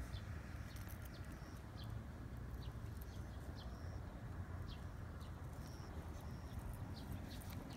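Small birds chirping in short, scattered high notes and brief whistles over a steady low background rumble.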